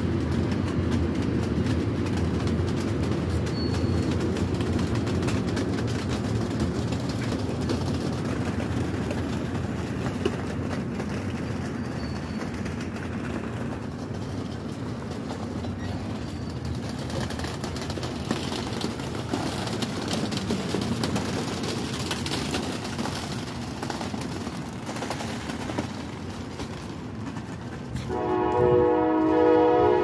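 Amtrak California bilevel passenger cars rolling past and pulling away: a steady low rumble with faint wheel clicks that slowly fades. Near the end a multi-chime train horn sounds, loud and held.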